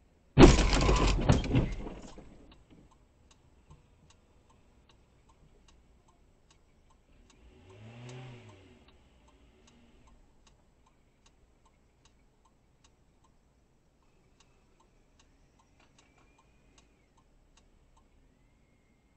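Car collision: a sudden loud crunching impact about half a second in that dies away over about two seconds. About eight seconds in an engine revs briefly, rising then falling in pitch, and faint regular ticking runs on after it.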